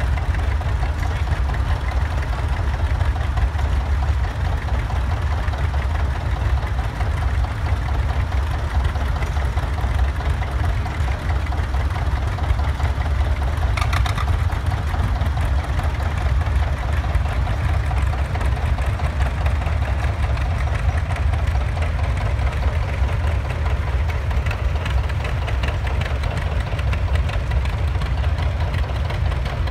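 Vintage farm tractor engine running steadily, with a short sharp click about halfway through.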